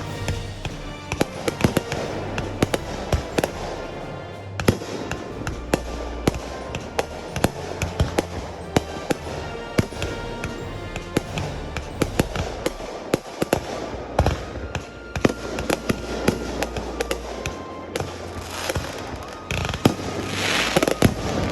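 A rapid, continuous barrage of aerial firework bangs and pops from a backyard fireworks show, with a swelling hiss of crackle near the end.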